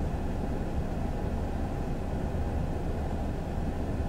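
Steady low rumble inside a parked car's cabin, even throughout.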